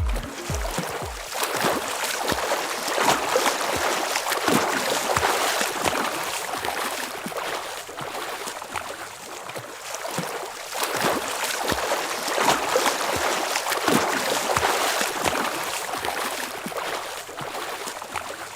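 Steady rushing and splashing of water, uneven in level, after a few last beats of music at the start.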